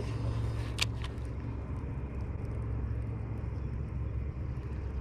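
A steady low rumble with a single sharp click about a second in.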